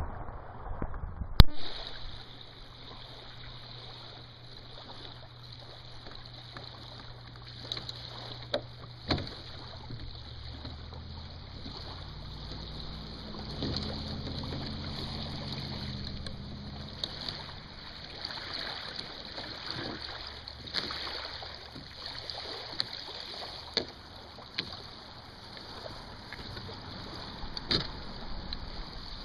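Wind and choppy lake water washing at the shore around a beached Sunfish sailboat, with a sharp knock about a second and a half in and a few lighter knocks later as the boat is handled. A low steady hum runs through the first half.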